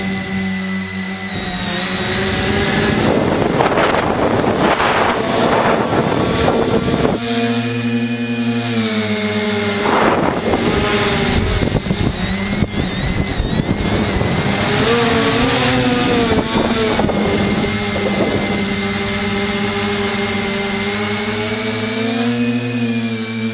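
Motors and propellers of a Bambucopter Bluebird tricopter whining steadily, heard through the onboard GoPro. The pitch rises and falls as the throttle changes, and rushes of wind noise come through several times.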